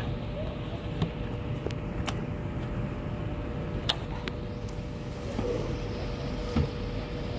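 Yellowfin tuna being cut with a large knife and cleaver on a wooden board, with a few sharp knocks of the blade striking the board: about a second in, near two seconds, near four seconds and again later on. Under it runs a steady low rumble with a faint hum.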